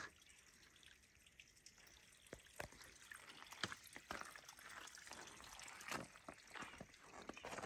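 Faint, irregular taps and scuffs of a hiker's footsteps on stone steps, over near silence, becoming more frequent after the first couple of seconds.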